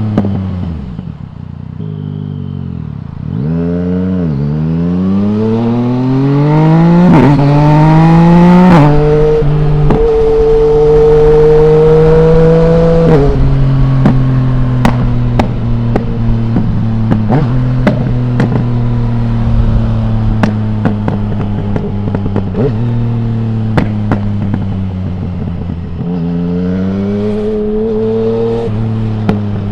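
2020 Yamaha MT-09's 847 cc three-cylinder engine through an Akrapovic full exhaust with no dB killer, slowing with crackles and pops at the start, then accelerating hard through several upshifts. It holds a steady cruise, eases off about a third of the way in, and pulls again near the end with another shift.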